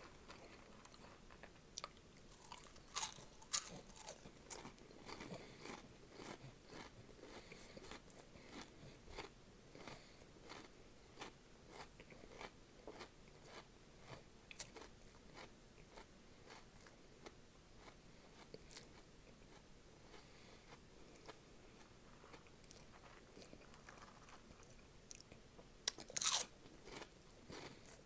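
Close-up crunching and chewing of Flamin Hot Cheetos and onion rings: a steady run of sharp crunches, with louder bites about three seconds in and again near the end.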